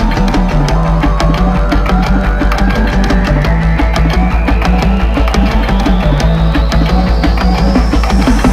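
Loud electronic music with fast, heavy drums and bass, under a long rising riser sweep that builds across the whole stretch and peaks near the end.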